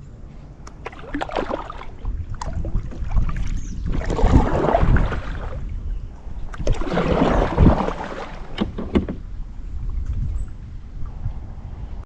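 Kayak paddle strokes in the water: splashing and dripping with two larger swells a few seconds apart, and scattered light knocks and clicks.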